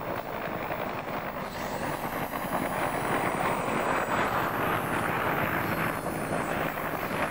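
A low-flying helicopter passing close: a steady rush of rotor and engine noise that swells midway, with a high turbine whine that rises and then falls in pitch as it goes by. There is wind noise on the microphone.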